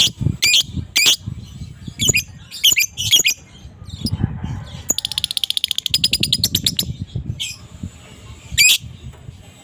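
Adult fighter lovebird calling: shrill, screechy chirps in quick clusters. About five seconds in comes a fast chattering run of rapid repeated notes, the lovebird's 'ngekek'. A few single sharp calls follow near the end.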